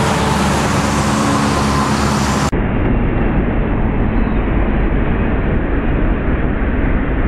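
Road traffic with tractor-trailers passing close by: a loud, steady rumble with an engine-like hum. About two and a half seconds in it switches abruptly to a duller, more muffled rumble.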